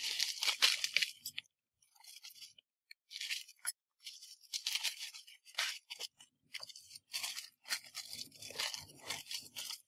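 Packaging being handled and opened: irregular crinkling and rustling of a small paper mailer envelope and the clear plastic zip bags inside it, in short uneven bursts.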